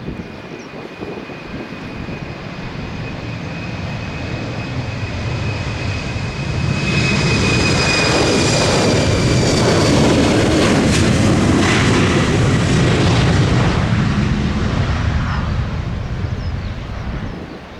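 Jet airliner passing close by: engine noise swells to a peak about halfway through and then fades, with a high engine whine that drops slightly in pitch as it passes.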